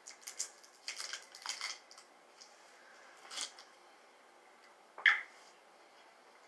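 Small plastic bottle of body oil being handled and its cap worked open: crinkly rustles and light clicks for the first two seconds, a sharper click about five seconds in.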